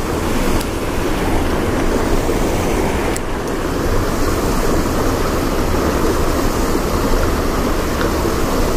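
Steady rush of fast-flowing river water churning into white water over rocks.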